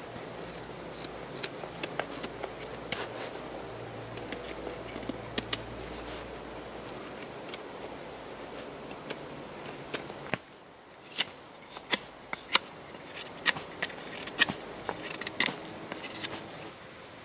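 Fixed-blade knife shaving a wooden stick: irregular sharp scraping strokes as the blade takes curls off the wood, louder and more spaced out in the second half.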